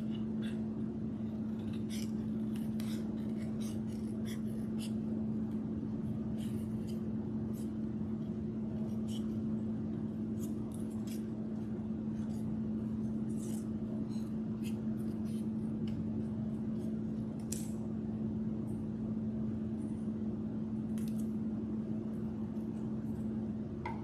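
Scissors snipping through black cardstock in short, irregular snips, over a steady low hum.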